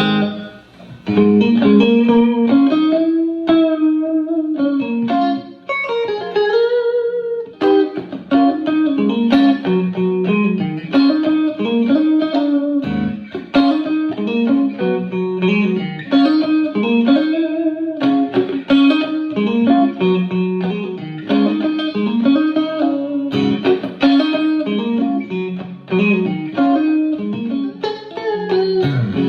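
Electric guitar played through a Fender Blues Junior tube amp with its Fat boost switch engaged: single-note lead lines with string bends, running continuously after a brief first note.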